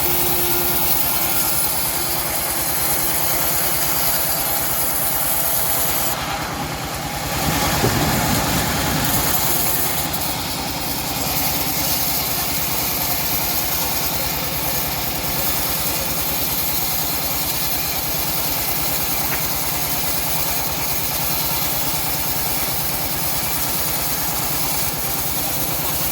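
Homemade engine-driven bandsaw mill running steadily, with a brief dip and then a short louder surge about eight seconds in.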